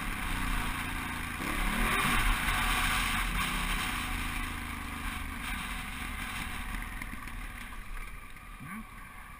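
Honda Africa Twin's parallel-twin engine running as the bike rides a dirt trail, revving up about a second and a half in and then slowly easing off, under a rushing noise that is strongest in the first few seconds.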